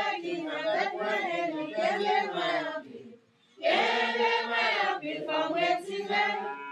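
A group of voices singing together as a choir, with a brief break about three seconds in before the singing resumes.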